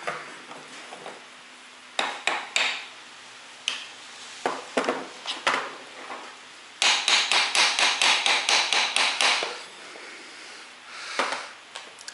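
Hard knocks of a tool tapping on a metal motor part: a few single knocks, then a quick run of about a dozen taps at about five a second, and one more near the end.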